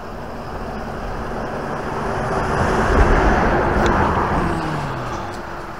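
A car driving past, its road noise swelling to a peak about three seconds in and fading away.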